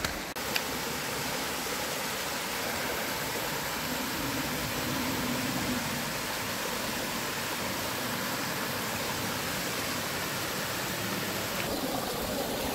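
A small mountain stream running in little cascades over rocks, a steady rush and splash of water.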